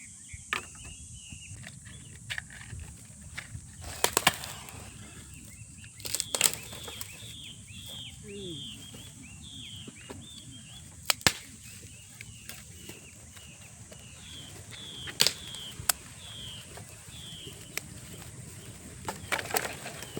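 Forest ambience: a bird repeats short chirps that slide downward, in runs, over a steady high insect drone. A few sharp clicks or snaps break in at scattered moments.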